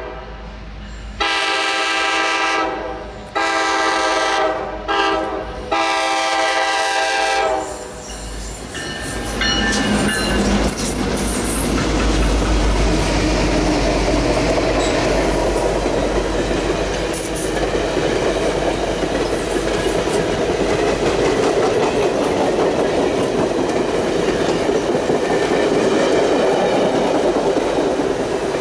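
Lead EMD F-unit diesel locomotive's horn sounding the grade-crossing signal: two long blasts, a short one and a final long one over the first seven seconds or so. Then the locomotives pass with a heavy diesel rumble, followed by passenger coaches rolling by with steady wheel-on-rail noise and clickety-clack.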